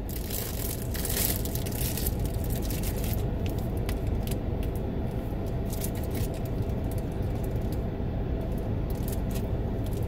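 Steady low hum of a car running, heard from inside its cabin. During the first three seconds there is crackling and crinkling as a MoonPie is unwrapped and bitten into, with a few faint crackles later.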